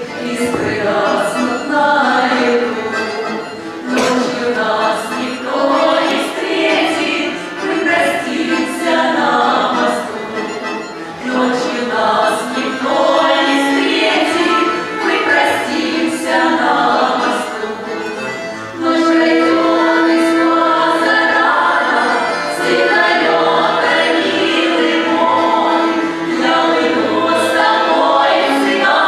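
Female vocal ensemble singing a Russian song together in phrases, with some long held notes in the second half and a light regular tapping keeping time.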